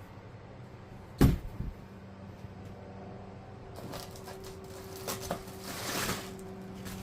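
Cardboard box and packaging being handled: a sharp knock about a second in, then a few clicks and a brief scraping slide near the end, over a steady low hum.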